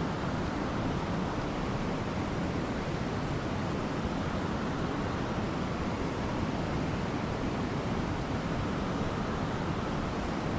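Steady rushing of flowing creek water, an even, unbroken noise that neither rises nor falls.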